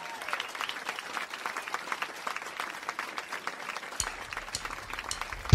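Live audience applauding: many scattered hand claps. A low hum comes in about four seconds in.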